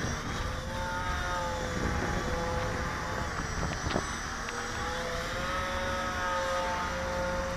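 Twin electric motors and propellers of a Durafly Cessna 310 RC model plane flying past, a droning whine that drifts down and back up in pitch as it passes.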